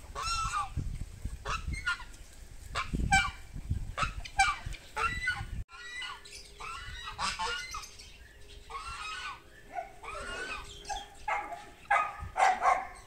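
Domestic fowl calling: a run of short, repeated clucks and squawks from several birds.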